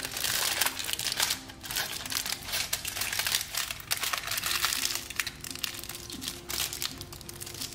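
Aluminium foil crinkling and crumpling in quick irregular crackles as it is twisted shut around the end of a wrapped roll, over faint background music.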